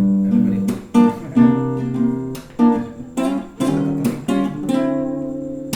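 Acoustic guitar strumming a sequence of chords with sharp, rhythmic strokes, playing a song's instrumental lead-in before the vocals.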